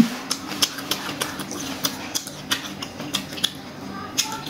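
Close-miked chewing of boiled pork intestine: irregular crisp, wet crunching clicks two or three times a second as the chewy, crunchy intestine is bitten through, over a faint steady low hum, with a short low bump right at the start.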